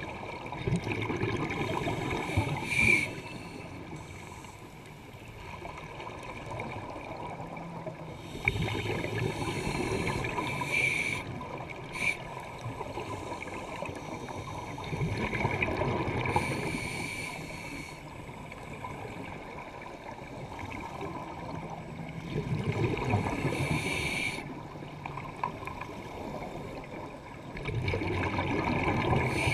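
A scuba diver breathing through a regulator underwater: bursts of exhaled bubbles about every six to seven seconds, five in all, with quieter stretches between.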